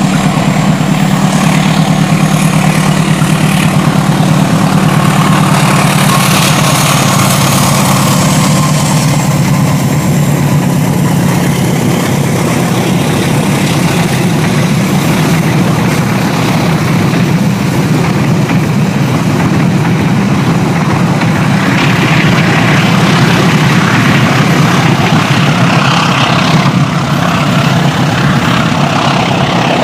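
Diesel-electric locomotive hauling a passenger train past at close range, its engine running with a steady low hum, with the coaches rolling by on the rails.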